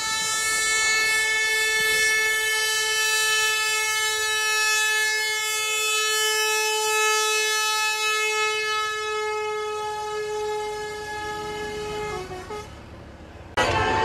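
Tour bus's Basuri telolet air horn holding one long, steady note that fades out about twelve seconds in. Near the end the sound jumps abruptly to louder road and vehicle noise.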